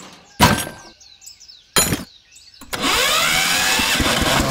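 Two sharp knocks, then an engine starting: a quick upward sweep in pitch about two-thirds of the way in, settling into a steady, fast, even idle near the end.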